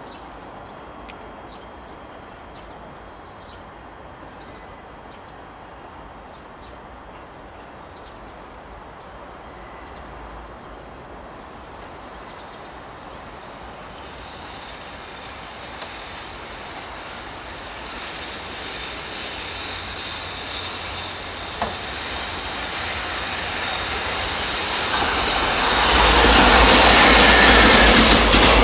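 Freight train approaching, its rumble growing slowly louder, then passing close from about 26 s in: a loud rumble of container wagons rolling by, with wheels clattering over the rail joints.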